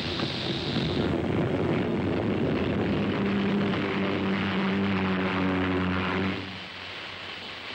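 Steam locomotive running at speed, its noise rising at the start; a low steady tone joins about three seconds in. The sound drops away sharply a little after six seconds, leaving a fainter hiss.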